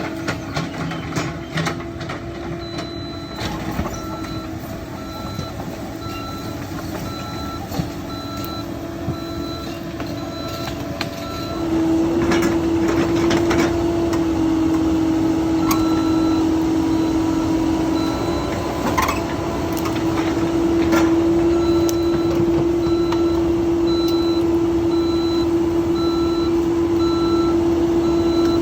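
CAT 308 excavator's diesel engine running, revving up under load about twelve seconds in, with a steadily pulsing alarm beep over it. A few sharp cracks sound around the middle.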